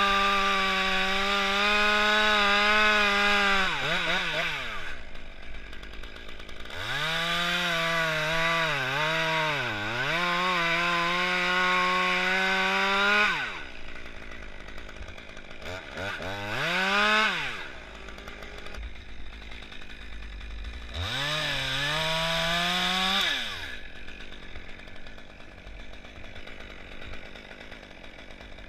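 Small two-stroke top-handle chainsaw revved to full throttle in four bursts, the third of them short, dropping back to idle between them. In the long second burst the pitch sags and wobbles as the chain bites into birch limb wood, and the saw idles quietly near the end.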